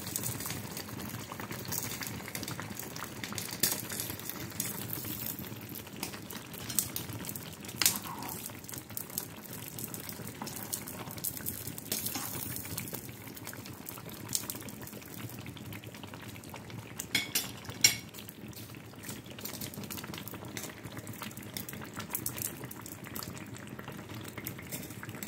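Thick owo soup simmering in a pot, bubbling and popping steadily. A few sharper clicks stand out, the loudest about three quarters of the way through.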